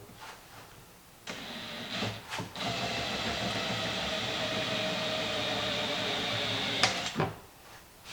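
Electric drill running for about six seconds, drilling out a pop rivet from a plastic compost tumbler's lid ring, with a sharp click shortly before the drill stops.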